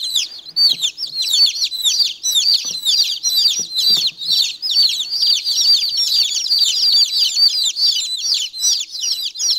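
A mixed brood of baby chicks peeping constantly and noisily, many high, down-slurred cheeps overlapping several times a second.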